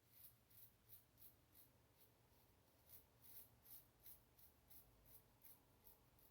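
Faint scratch of an Above the Tie R1 safety razor blade scraping across lathered stubble, in short, quick strokes about three a second, with a brief lull in the middle. These are the light touch-up strokes of a final cleanup pass.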